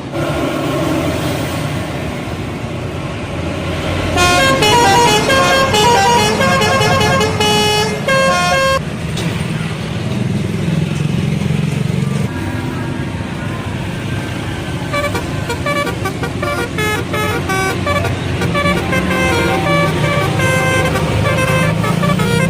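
Bus telolet horn, a multi-tone air horn, playing a quick melody of stepped notes from about four seconds in for some five seconds, then another run of notes from about fifteen seconds on. A bus engine runs underneath.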